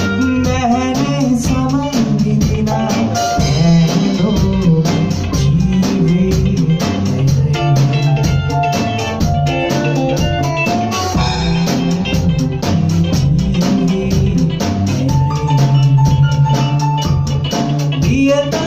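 A live band playing a song with a steady beat on a drum kit, an electric bass line and keyboard.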